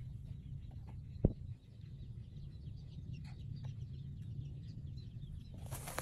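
Outdoor field sound: a steady low rumble with scattered faint, short bird chirps, a single sharp thump about a second in, and a rustling hiss that begins near the end.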